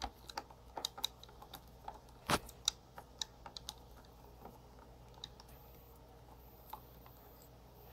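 Faint, irregular clicks and taps of a Phillips screwdriver turning out the side brush screw on an upturned Roomba's plastic underside, thinning out after about four seconds.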